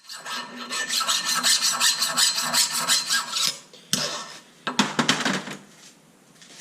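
Rasping hand-filing strokes, quick and even at about five a second, stopping about three and a half seconds in. A sharp knock follows, then a short second run of strokes.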